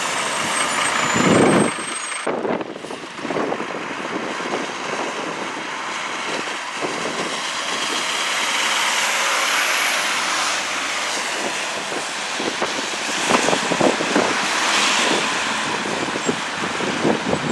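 Heavy truck engine and road noise with passing traffic, a louder low rumble about a second in and a few sharp knocks later on. No siren or air horn stands out.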